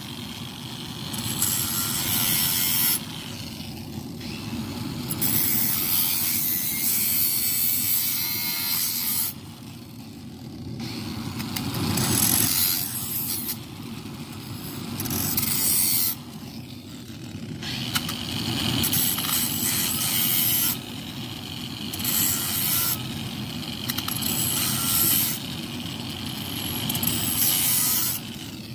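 Angle grinder running steadily, its abrasive disc pressed again and again against a forged steel knife blade held in a vise. The grinding comes in loud stretches of one to four seconds with short breaks between, while the motor keeps running.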